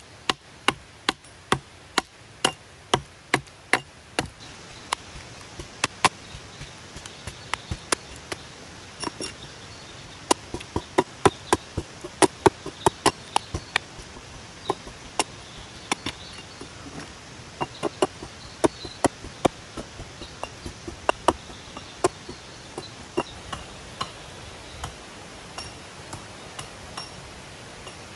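Small hatchet chopping into a dry, weathered log as its top is hewn flat: a long run of sharp chops, about two to three a second in bursts with short pauses, growing fainter near the end.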